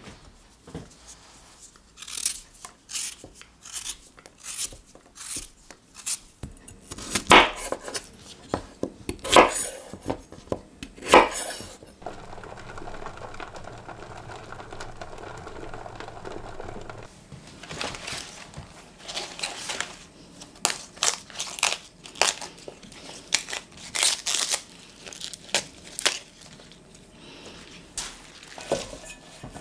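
Kitchen prep sounds: potatoes handled and cut, with sharp knocks of a knife on a wooden board. Then a few seconds of a pot of potatoes at a steady boil. Then spring green leaves being torn and crumpled by hand, with crackling and rustling.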